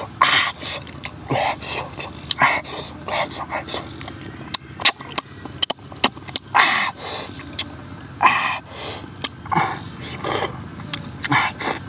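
A person eating cooked eel with his fingers: repeated short, irregular mouth smacks and chewing sounds. A steady high drone of insects runs underneath.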